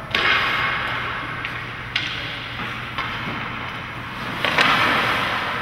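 Ice skate blades cutting into rink ice in three hard strides, each a sharp scraping hiss that fades away.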